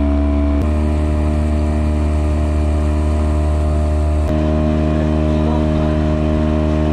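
Small outboard motor on an inflatable boat running steadily under way, a continuous engine drone; its note drops slightly and abruptly about half a second in and jumps back up about four seconds in.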